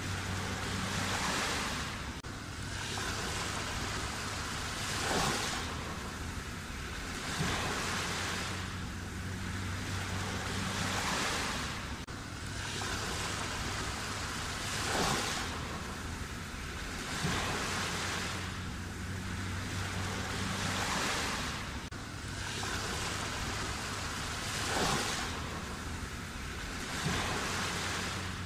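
Sea waves washing onto the shore in a steady cycle, surging and falling back about every two seconds, with a sharper breaking crash now and then.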